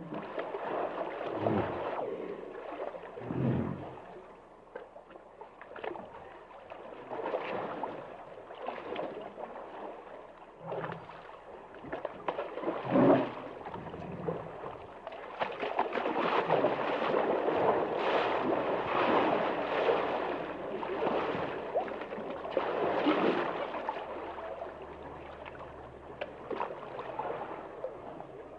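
Hippos in water: sloshing and gurgling water with a few short, low grunts in the first half, then a longer spell of louder churning water from about halfway on.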